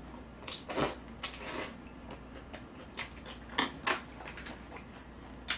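Close-up eating sounds of a person chewing a mouthful of stir-fried kimchi, with a few scattered short smacks and clicks.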